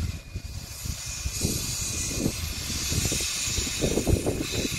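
Steam hissing from the steam locomotive T251 as it runs in. The hiss strengthens about a second and a half in and eases near the end, over a low, irregular, gusty rumble.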